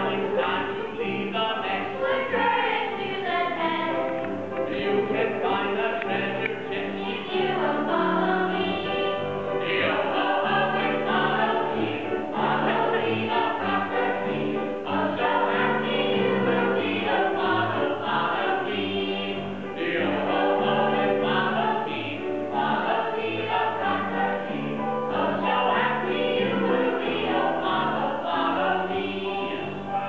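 A children's choir singing a song together with musical accompaniment.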